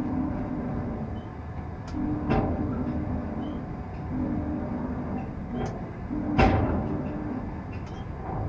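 Potain tower crane's drive motors running in stretches as the concrete bucket is moved, heard from inside the operator's cab: a low hum that comes and goes, with a few knocks, the loudest about six and a half seconds in.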